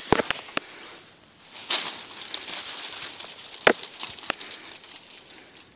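Dry, dead maple leaves rustling and crackling, with scattered sharp crinkly clicks and a denser rustle from about two seconds in.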